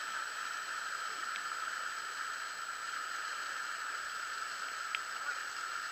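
Small forest stream rushing over rocks and debris: a steady, even water noise.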